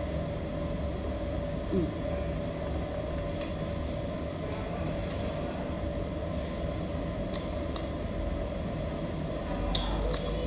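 A steady low rumbling hum with a faint held tone, with a few soft clicks and one short squeak about two seconds in.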